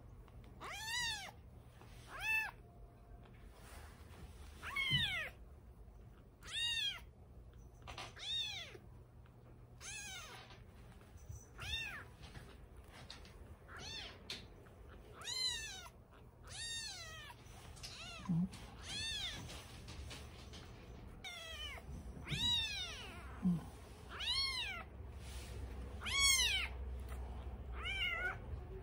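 A three-week-old kitten mewing over and over: short, high, thin calls, each rising then falling in pitch, about one every second or two.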